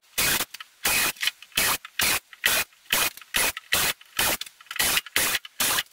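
Cordless drill boring a grid of small drainage holes through a UHMW plastic (puck board) seat base. About a dozen short drill bursts, roughly two a second, each one a hole.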